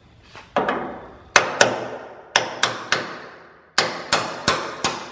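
Hammer blows on a worn steel door hinge on a Fox-body Mustang's body: about ten sharp metallic strikes in uneven groups, each ringing briefly.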